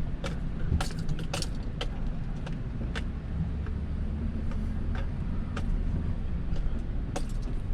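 A motor vehicle's engine running steadily as it drives slowly over rough ground, with scattered light clicks, knocks and rattles.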